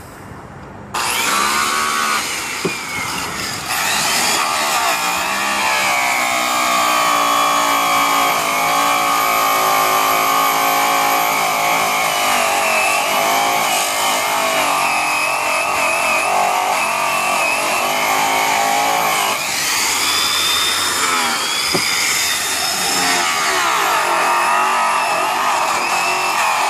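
Hand-held electric rotary polisher spinning a yellow buff at high speed, first loaded with a bar of brown Tripoli compound, then cutting an aluminum wheel. The motor's whine starts about a second in, gets louder a few seconds later, and wavers in pitch.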